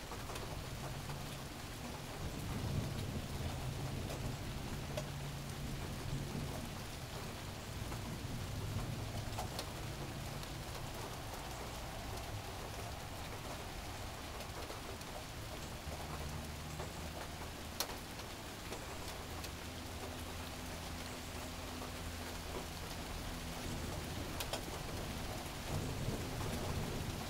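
Steady rain falling, an even hiss throughout, with a low rumble that swells and fades at times and a single sharp tick about two-thirds of the way through.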